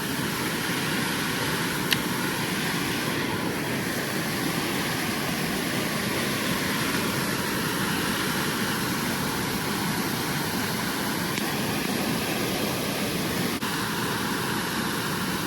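Waterfall rushing steadily into a creek pool, a constant even roar of falling water, with a faint tick about two seconds in.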